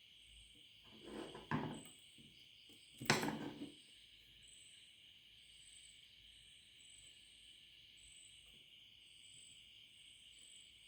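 Two brief bursts of handling noise with a sharp knock in each, about one second and three seconds in, over a faint steady hiss.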